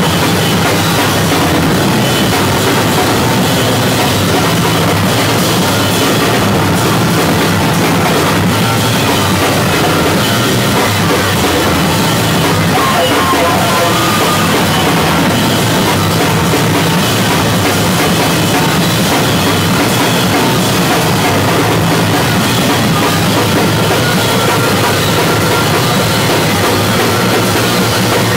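Live noise rock from a drum kit and electric bass: frantic, nonstop drumming with crashing cymbals under a distorted bass, loud and unbroken.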